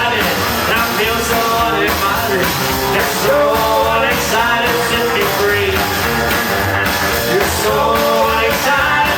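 Rock and roll band playing a song, steady and loud throughout.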